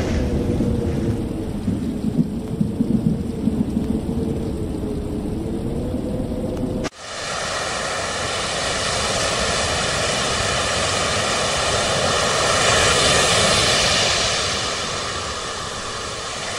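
Storm sound effect of rumbling thunder and rain, cutting off abruptly about seven seconds in. Then a steady rushing of sea waves follows, swelling and then easing near the end.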